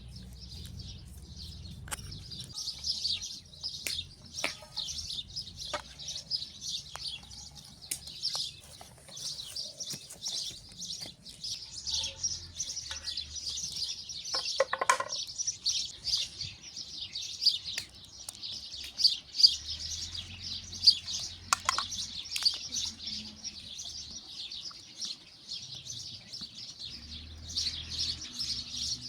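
A dense chorus of small birds chirping and twittering without a break, with a few sharp clicks and knocks scattered through it and a short low rumble now and then.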